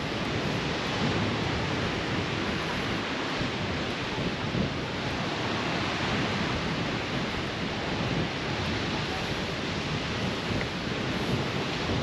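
Steady wind gusting across the microphone, mixed with surf washing onto a sandy beach.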